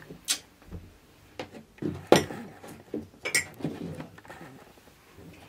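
Mugs and a thermos flask handled on a tabletop: several sharp knocks and clinks, the loudest about two seconds in.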